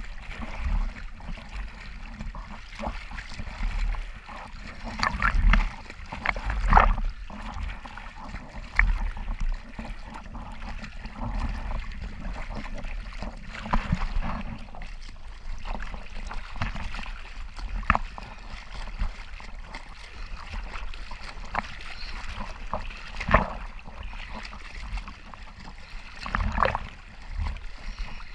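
Sea water sloshing and splashing around a camera held at the surface in a light chop, with sharp wave slaps at irregular moments, the loudest a few seconds in and again near the end.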